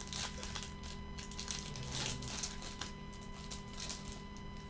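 Trading cards rustling and scraping as gloved hands slide them apart, a run of short irregular crinkles and scrapes.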